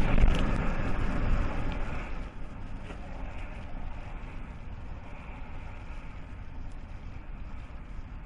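Dashboard-camera audio of a bus bomb blast: a loud, low rumble at the start that fades over about two seconds. Steady road and engine noise from the car carrying the camera follows.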